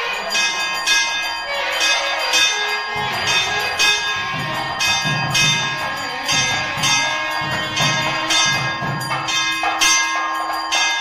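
Temple bell rung over and over in a steady rhythm, each stroke ringing on into the next, with music underneath.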